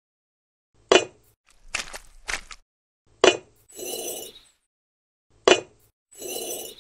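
Miniature clay bricks being laid one by one along a wet mortar bed: a sharp clink each time a brick is set down, three times about two and a half seconds apart, with short gritty scrapes as the bricks are pressed into place.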